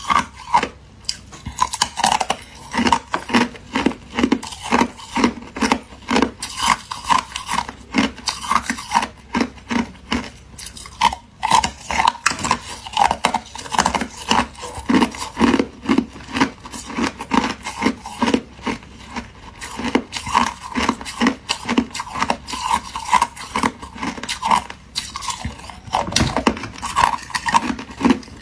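Thin clear ice being bitten and chewed, a quick run of crisp cracking crunches, about two or three a second, that goes on without pause.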